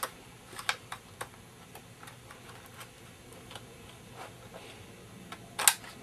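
Small clicks and taps as a Crucial 2 GB DDR3 SO-DIMM memory module is fitted into the memory slot of an Asus Eee PC 1015 netbook, with a sharper click near the end as the module is pressed into place.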